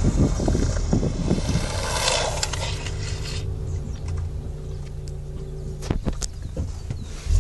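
Longboard wheels rolling fast on asphalt with wind buffeting the microphone, a steady low rumble and hum; two sharp knocks come close together about six seconds in.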